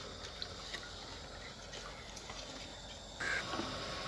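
Thin sugar syrup simmering in an aluminium pot: a faint steady bubbling with scattered small pops. About three seconds in, the background gets abruptly louder.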